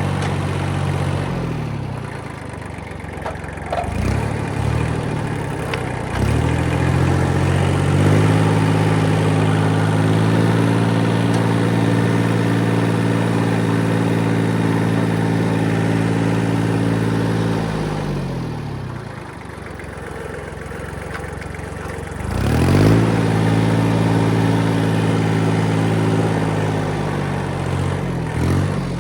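Kubota diesel engine running and revving up twice to hold a higher speed, first for about ten seconds and then for about five, dropping back toward idle in between and again near the end.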